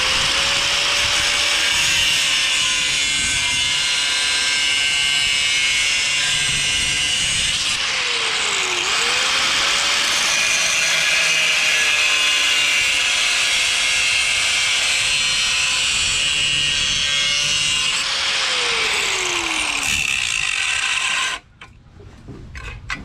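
A handheld power tool cutting a hole in the steel bracket of a rear disc-brake kit: a steady motor whine over a harsh metal-cutting hiss. The motor pitch dips under load about nine seconds in, then winds down near the end before the tool stops.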